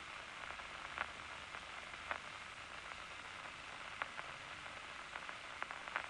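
Loudspeaker audio monitor of a locust's nerve cord in its resting state: a steady hiss with a few faint, scattered clicks and no bursts of large nerve impulses, since the eye is not being stimulated.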